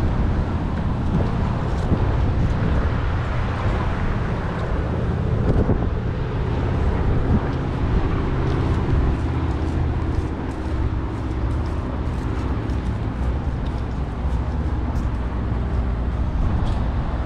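Road traffic noise: a steady low rumble, with faint scattered ticks.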